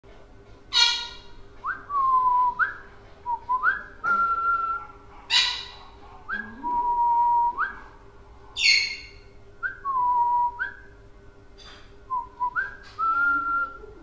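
Pet parrot whistling a short repeated phrase of clear notes that glide up and hold. The whistling is broken three times by a loud, harsh squawk.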